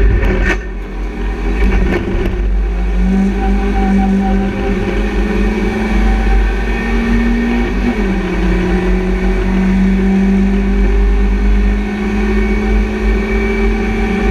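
BMW Compact Cup race car's engine at high revs, heard from inside the stripped cabin, pulling hard with the pitch climbing under acceleration. About eight seconds in the pitch drops at an upshift and then climbs again. A few sharp knocks come about half a second in.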